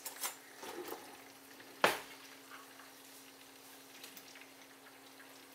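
Faint sizzling of chicken and tomatoes frying in oil in a pan, with a few light clinks of a knife as butter is scooped into it; the loudest is one sharp clink about two seconds in. A steady low hum runs underneath.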